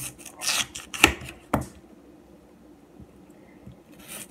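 Kitchen knife cutting raw potatoes on a cutting board: a short scrape, then two sharp knocks of the blade on the board about half a second apart.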